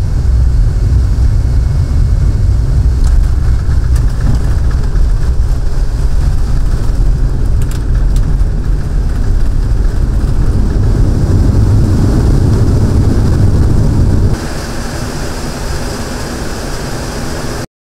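Cockpit noise of a Boeing C-17 Globemaster III rolling down the runway after landing: a loud, steady, deep rumble from its four turbofan engines and the roll. About fourteen seconds in it drops suddenly to a quieter, steady taxiing hum with a faint whine, then cuts off.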